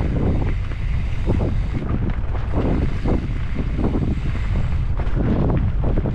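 Wind buffeting the microphone of a camera riding fast down a forest dirt trail, over a steady low rumble, with frequent knocks and rattles as the bike rolls over roots and bumps.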